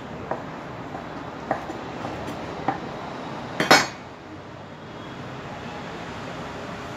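Kitchenware clinking as it is handled: a few light taps, then a louder ringing clatter a little past halfway, over a steady background hiss.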